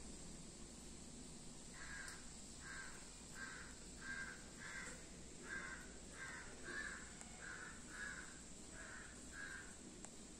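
A crow cawing: a steady run of about a dozen short, faint caws, roughly one every 0.7 seconds, starting about two seconds in.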